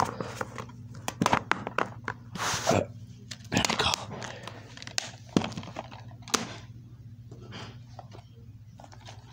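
Handling noise as the camera and DVD cases are moved about: irregular clicks, knocks and brief rustles, over a steady low hum.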